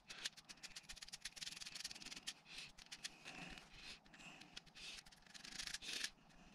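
Faint rubbing and small clicks of fingers pressing and smoothing polymer repair compound along the gaps of a plastic climate-control bezel, with the bezel shifting in the hands.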